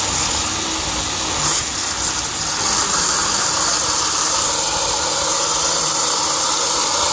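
Electric mixer grinder running steadily, its blade spinning a thick paste in an open stainless-steel jar while water is poured in.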